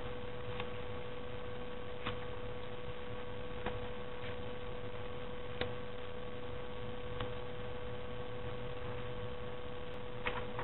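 Steady electrical hum in the recording, one even tone, with a few faint, soft ticks from paper being handled.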